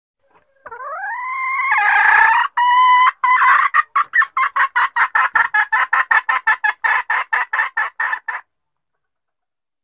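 Junglefowl hen calling: a rising squawk that breaks into a harsh loud cackle, then a fast, even run of clucks about four a second that stops abruptly.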